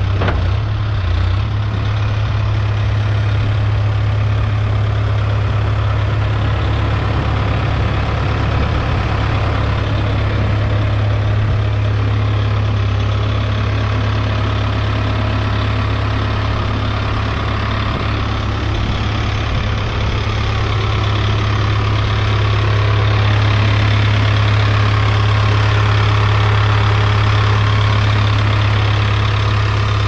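Diesel engine of a Case 570T backhoe loader idling steadily with an even low hum, slightly louder toward the end.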